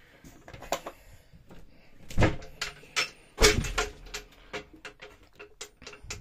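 Wooden cabin door of a boat's toilet compartment being opened: two solid knocks about two and three and a half seconds in, among lighter clicks and taps of the door and its latch.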